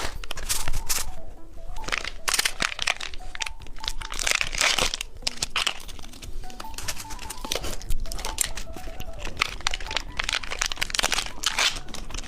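Plastic candy packaging crinkling and rustling in the hands, with many sharp irregular crackles.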